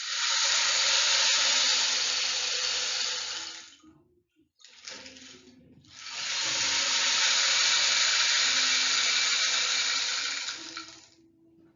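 Rushing water in two swells, each building up, holding for about three to four seconds, then fading away, with a short lull between them.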